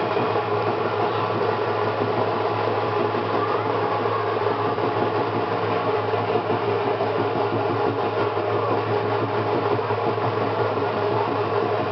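Dhak drums beaten in a fast, continuous beat for the dhunuchi dance, steady in loudness throughout.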